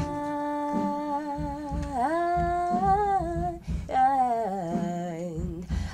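A voice humming a slow wordless melody: one long held note, then notes that swoop up and waver, a short break, and a falling line near the end.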